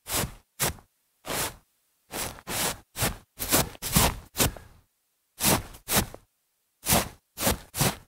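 Foley of feet shuffling through grass: a run of about fifteen short brushing scuffs with silence between them, pausing briefly about five seconds in.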